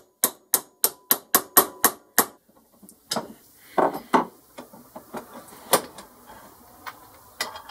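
Rapid sharp metal knocks, about four a second for two seconds, on a socket set over a new ball bearing as it is driven into its cast bearing housing. Scattered clunks of the metal parts being handled follow.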